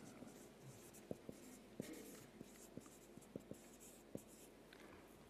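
Faint marker-on-whiteboard writing: soft scratching strokes of a marker tip on the board, with several light taps.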